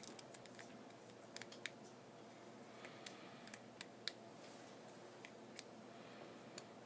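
Faint, scattered small clicks and ticks of a precision screwdriver and tiny screws on the iPhone 4's metal frame as the inner screws are taken out and loosened, the sharpest click about four seconds in.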